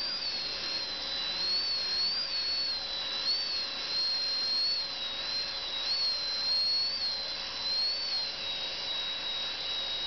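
High-speed dental drill whining steadily in a dog's tooth, its high pitch wavering slightly up and down over a steady hiss, as it cuts to free a retained caudal root.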